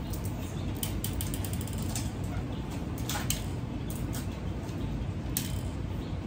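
Plastic Connect Four checkers clicking: a checker dropped into the plastic grid clatters down in a quick run of clicks about a second in, followed by a few single light clicks of checkers being handled.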